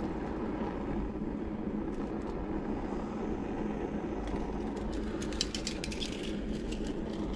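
Handheld butane kitchen torch burning steadily with a rushing hiss while it heats a brass alcohol-stove burner for soldering. A run of light clicks and taps comes about four to six seconds in.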